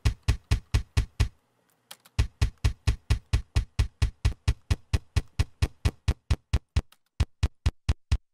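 Fast, even run of isolated kick drum hits from the right-foot track of a metal double-bass drum part, about six a second. Each hit is short and clicky, its tail cut off by a noise gate. The run stops for about a second early on and again briefly near seven seconds.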